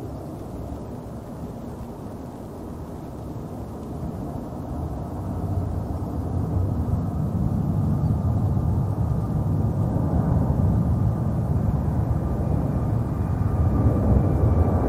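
Boeing 757's jet engines, a low rumble growing louder as the aircraft draws near, with a faint steady whine joining about ten seconds in.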